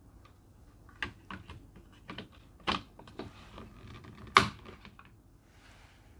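Handling noise: a string of irregular sharp clicks and knocks of hard objects, the loudest about four seconds in.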